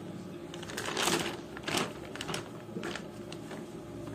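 Thin plastic bag rustling and crinkling in irregular bursts as a hand opens it and pulls at the cloth bundle inside.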